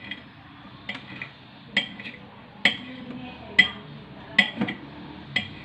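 Kitchen knife slicing button mushrooms on a ceramic plate, the blade knocking the plate about once a second with a short clinking ring.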